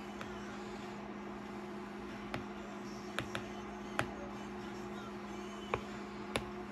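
Steady low hum with a few sharp, light ticks scattered through. The last ticks come from a new Apple Pencil tip tapping the iPad's glass screen as writing starts.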